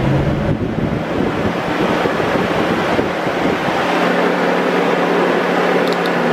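1984 Corvette C4's electric radiator cooling fan running at full speed, a loud steady rush of air over a low motor hum. It has been switched on by joining the wires of a new manual fan switch with the ignition on, which shows that the fan works on this wiring.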